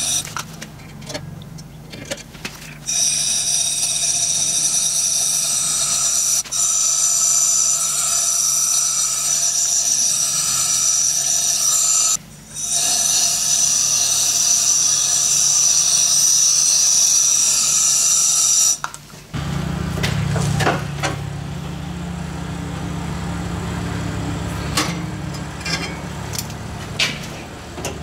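Electrostatic powder coating gun spraying wrinkle-black powder: a loud, steady hiss of air, stopped and restarted a few times early on and briefly cut off once about twelve seconds in. After about nineteen seconds this gives way to a low steady hum with a few scattered clicks and knocks.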